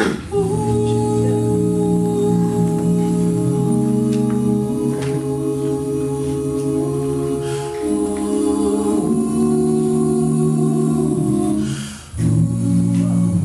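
Male a cappella gospel group singing in close harmony, holding sustained chords that shift every second or two, with a brief break about twelve seconds in before the next chord starts.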